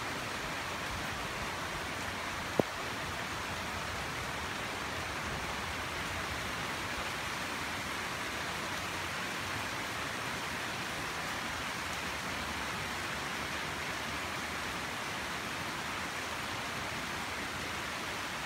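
Steady rain falling, an even hiss. There is one sharp tap about two and a half seconds in.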